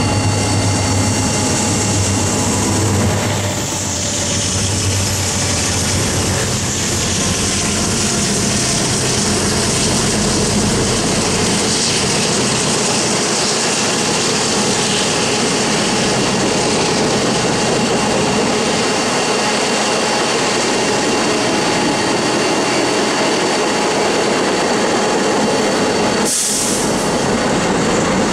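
A diesel freight locomotive passing close by, its low engine hum fading after about four seconds, followed by the steady rolling rumble of a long string of freight tank cars passing. Near the end, a brief hiss.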